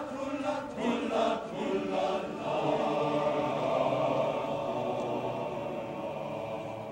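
Male-voice choir singing in many parts: rhythmic repeated syllables imitating a train's chugging for about the first two seconds, then the voices swell into one long held chord that stops just before the end.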